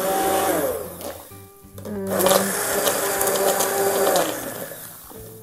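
Handheld 600 W immersion blender running in a pot of vegetable stock, puréeing the cooked vegetables. It runs in two spells with a steady motor whine: a short one at the start, then a brief pause about a second in, and a longer run from about two seconds in.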